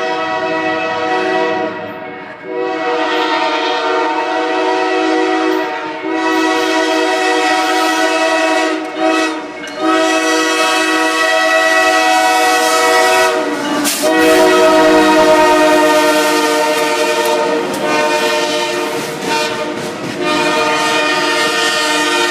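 Diesel locomotive air horn sounding a multi-note chord in several long blasts with short breaks between them. It is a weird-sounding horn. The chord's pitch bends down briefly about halfway through.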